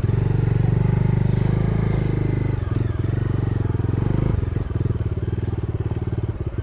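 Bajaj Dominar 250's single-cylinder engine running as the bike is ridden over a rough dirt track. The engine note eases a little about halfway through, and a few knocks come from the bumpy ground.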